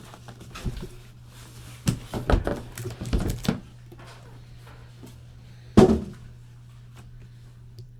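Objects handled on a tabletop: a run of knocks and clatters for a second or so, then one sharp, loud thunk about six seconds in, over a steady low electrical hum.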